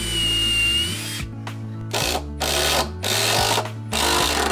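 Cordless impact driver running in four bursts, driving a screw into a hinoki cypress deck frame: a first run of about a second with a steady whine, then three shorter runs about a second apart.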